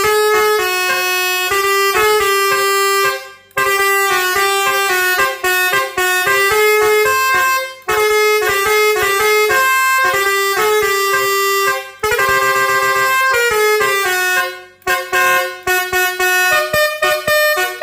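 Romeo 2.0 musical air horn playing a tune: a run of loud, stepped horn notes with a few brief breaks, turning to quicker short notes in the last few seconds.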